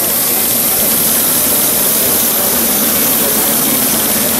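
Several miniature model engines running together on compressed air, a steady fast chuffing with a constant hiss of air.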